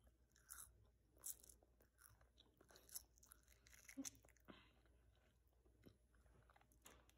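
A child chewing marshmallow with her lips smacking: faint, scattered wet smacks and clicks at irregular intervals, the strongest about four seconds in.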